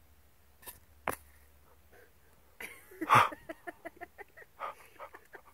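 A dog vocalising: a loud whining cry about three seconds in, followed by a quick run of short whimpers, about four or five a second. Two short clicks come just before.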